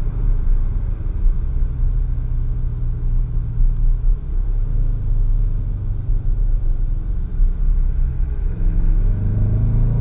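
2017 Dodge Charger R/T's 5.7-litre Hemi V8 on its stock factory exhaust, running at a steady low cruising note, heard from inside the cabin. The engine note rises in pitch and level near the end as the car picks up speed.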